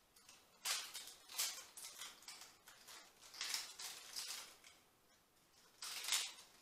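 Leaves of a fresh ivy garland rustling and crackling as sprigs are pushed and tucked into place, in three short flurries: about a second in, midway, and near the end.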